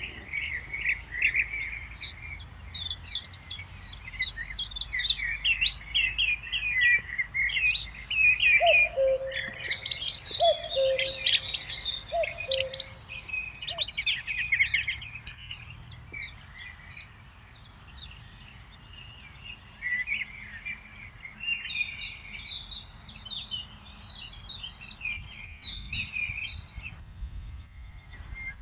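Several songbirds singing and chirping at once in a busy chorus of quick, high trills and twitters. A lower two-note call, high then low, sounds four times at an even pace about nine to thirteen seconds in.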